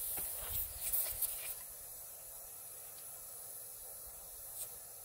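Air hissing steadily out of a Nissan Xterra's tyre valve as the tyre is aired down from about 38 to 20 psi for a smoother ride on a bumpy dirt road. A few scuffs and knocks sound in the first second and a half.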